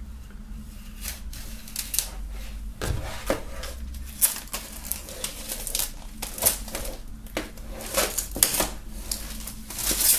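Shrink-wrap film on an LP record sleeve being slit with a folding knife and pulled off, the plastic crinkling and tearing in irregular crackles and clicks.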